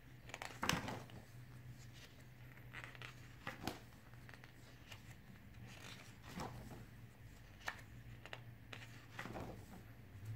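Thick photobook pages in a ring binder being turned by hand: a handful of soft paper rustles and flicks, the loudest about a second in, over a steady low hum.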